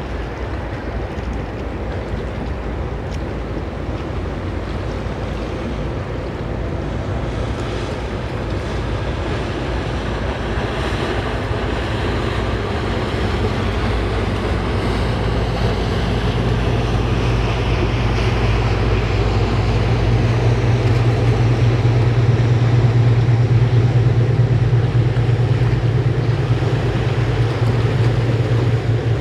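Engines of a large motor yacht running as it cruises past, a steady low drone that grows louder through the second half as the boat comes close. Over it, the rushing hiss of its bow wave and wake on the water.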